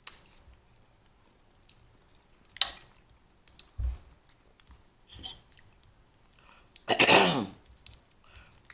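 Close-up eating of a seafood boil: a few scattered smacks and crunches of chewing, then a loud throat-clearing cough about seven seconds in, as the spicy seasoning catches in the throat.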